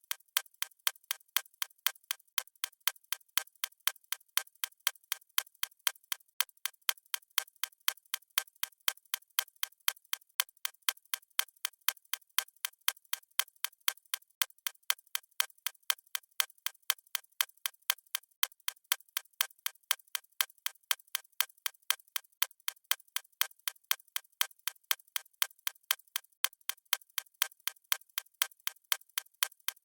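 Clock-ticking sound effect of a countdown timer: steady, crisp ticks at an even pace of about two a second.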